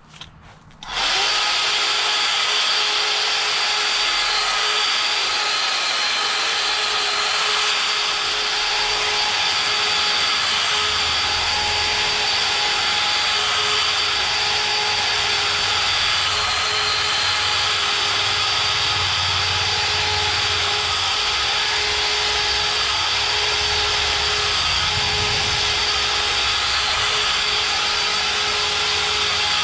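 String trimmer starting up about a second in and then running steadily at full speed with a constant high whine.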